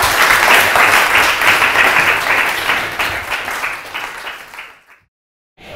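Audience applauding, with many hands clapping, dying away about four and a half seconds in.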